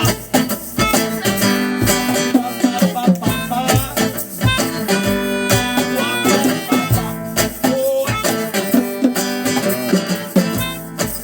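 Live band playing an instrumental passage of the song, led by guitar strummed in a steady rhythm, with no singing.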